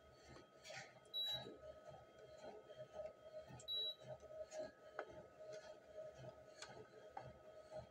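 Treadmill console giving two short high beeps about two and a half seconds apart, over the machine's steady motor hum and regular footfalls on the belt.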